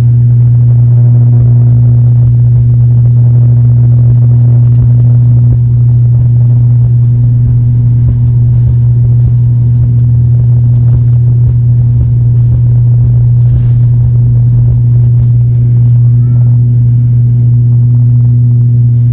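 Turboprop airliner's engines and propellers (ATR 72) heard from inside the passenger cabin: a loud, steady low drone with a strong constant hum and rumble that holds level throughout.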